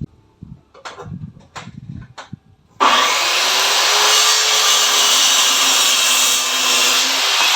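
A few short clicks and rustles of handling, then about three seconds in a hand-held electric power tool switches on and runs steadily with a loud hiss and a faint motor hum.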